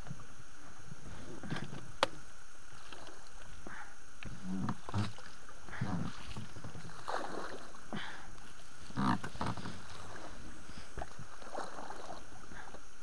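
Inflatable boat being pushed through bog grass and weedy shallow water: irregular swishes, splashes and rubbing of vegetation against the boat, with a sharp knock about two seconds in.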